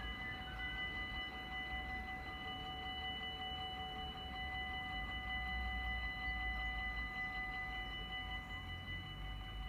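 Electronic warning bells of a Dutch automatic half-barrier level crossing, ringing in a steady, even tone while the barriers lower. A low rumble sits underneath.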